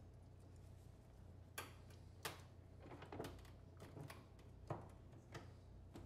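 Near silence over a low steady hum, with several faint clicks and taps as plastic check-valve fittings are handled and pushed back onto the manifold blocks of the pump tubing.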